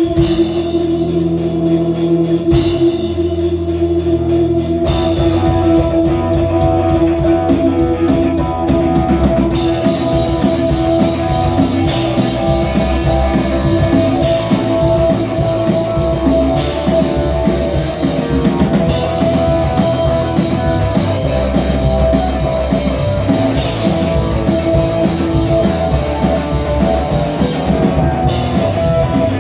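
Instrumental rock music played by electric guitar and drum kit over a held steady note, with the full band texture filling in about five seconds in.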